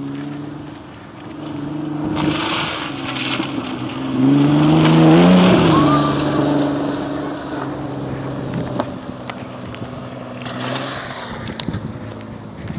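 Kia Sorento's engine revving in the mud, its pitch climbing to a peak about five seconds in and falling back, with a rushing noise of spinning wheels about two to four seconds in.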